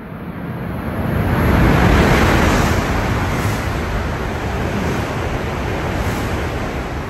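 A coupled E5 and E6 series Shinkansen passing straight through the station at high speed beside the platform, under the platform's covering roof. Its rushing roar of air and wheels builds over the first two seconds, stays loud, and begins to fade near the end.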